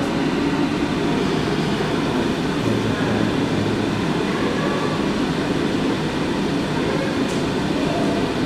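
Push-button fan blowing a steady rush of air onto the spinning propellers of a hands-on wind exhibit, an even, unbroken noise.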